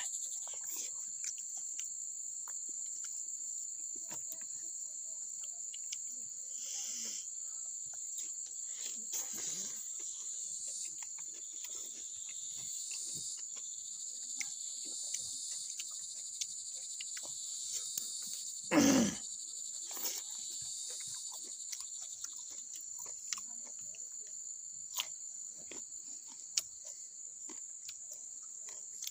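A steady, high-pitched insect chorus, crickets or similar, runs throughout, with small scattered clicks and smacks of someone eating. About two-thirds of the way through comes one short, louder grunt-like sound.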